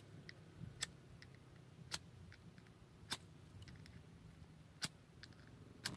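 Pocket knife whittling a dead stick: about six sharp clicks roughly a second apart as the blade bites into the wood, with fainter small ticks between the strokes.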